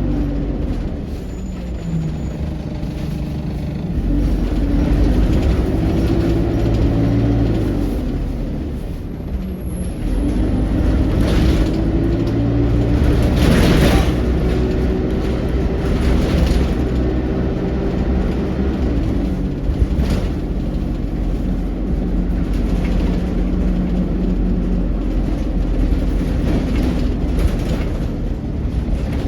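ADL Enviro200 bus under way, heard from inside: its diesel engine pulls through the Allison automatic gearbox, the engine note climbing and then dropping at each gear change, over steady road rumble.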